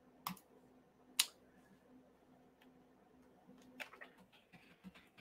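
Clicks at a computer: two sharp clicks in the first second and a half, another near four seconds, then lighter, quicker keyboard typing, over a faint steady low hum.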